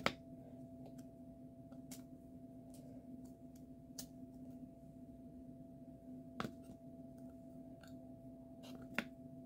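Faint, scattered clicks and taps from diamond-painting keychains being handled and turned over, the sharpest about six seconds in and again near the end, over a steady low hum.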